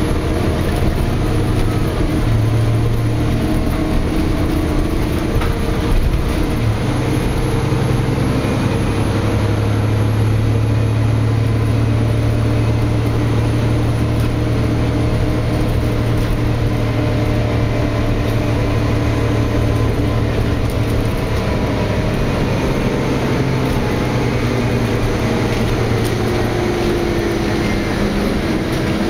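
Interior of a Nova Bus LFX city bus under way: the Cummins ISL9 diesel engine and Allison six-speed automatic transmission running with a steady low drone, over a constant haze of road and tyre noise. The engine note shifts slightly about six or seven seconds in.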